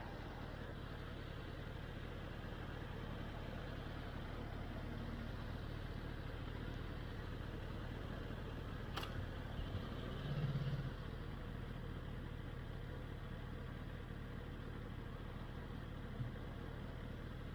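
Kawasaki ZX-10R's inline-four engine running steadily at low revs, close to idle, with a brief louder low hum about ten seconds in.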